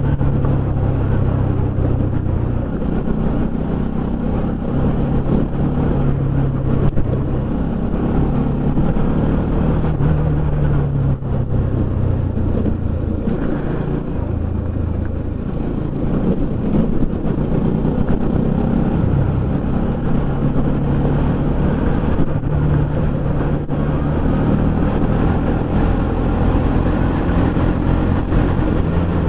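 Bajaj Pulsar NS200 motorcycle's single-cylinder engine running under way, its pitch stepping up and down every few seconds with throttle and gear changes, over steady road and wind noise.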